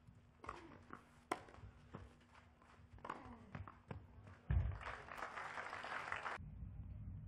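Tennis rally: a ball struck back and forth by racquets, a sharp pop every half second to second, then a loud thud and a burst of crowd applause that cuts off suddenly.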